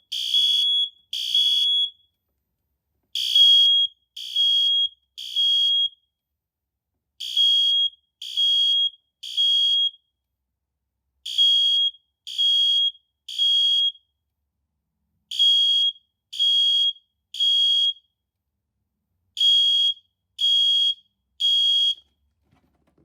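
A System Sensor SpectrAlert Advance P2R horn strobe set to temporal low and a smoke alarm sounding together in the temporal-3 fire evacuation pattern. The pattern is groups of three high-pitched beeps, then a pause of about a second and a half, repeating every four seconds.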